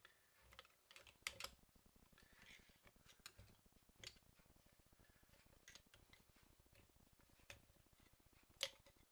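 Small screwdriver working against the clutch plates of a Sachs 505 moped engine, prying a plate up and out of the clutch basket: faint, irregular metallic clicks and light scrapes, with a louder click about a second in and another near the end.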